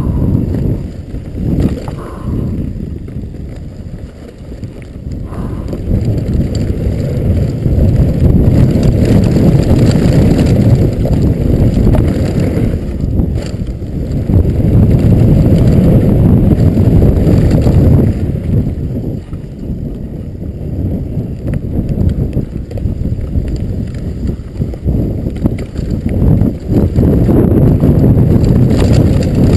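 Specialized Stumpjumper FSR full-suspension mountain bike descending a dry, bumpy dirt trail at speed: tyres rumbling and the bike rattling over washboard braking bumps, with wind on the microphone and now and then a sharp knock. The rumble eases for a few seconds near the start and again a little past the middle, then comes back loud.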